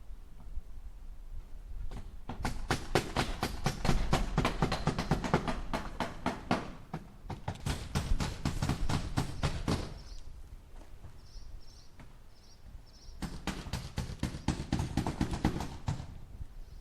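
Hammer driving nails into wood: three runs of quick, even strikes, several a second, with short pauses between them.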